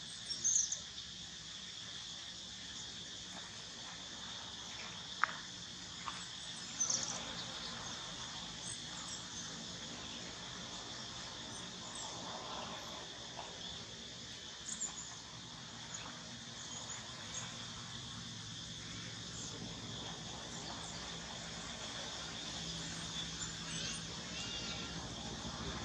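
Insects droning steadily at one high pitch, with a few short bird chirps and a single sharp click about five seconds in.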